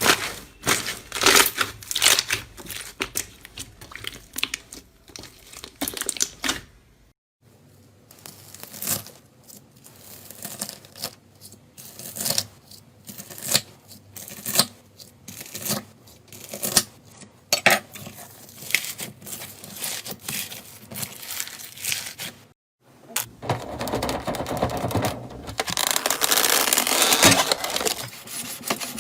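Slime being squeezed, stretched and poked by hand: irregular sticky crackles, pops and clicks. The sound changes twice where the clips cut, and the last stretch is a denser, steadier crackling.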